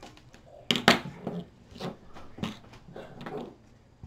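Hands handling craft tools and chipboard on a tabletop: a metal stylus tool set down and a glue bottle picked up, giving about five short knocks and taps, the loudest about a second in.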